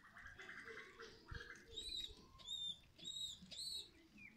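Water pouring from one plastic bottle into another, gurgling for the first second and a half. Then four short high chirps from a bird, each arching up and down in pitch, about half a second apart.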